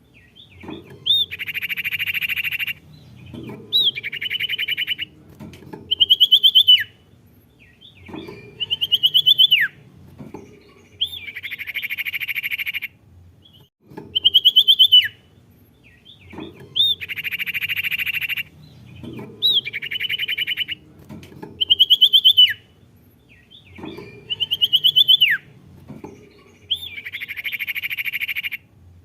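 Recorded song of the sirtu, a small Indonesian songbird, played on a loop. The same phrase comes back about every five and a half seconds: sharp chirps that drop in pitch, then a buzzy, rattling trill.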